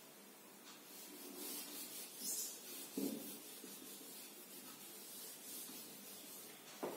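Whiteboard eraser (duster) rubbing over a whiteboard in repeated faint strokes, wiping off marker lines.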